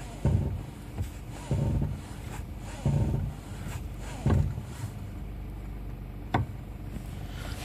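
Dull, low knocking: four thuds about a second and a third apart, each lasting a fraction of a second, then a single sharper click about six and a half seconds in.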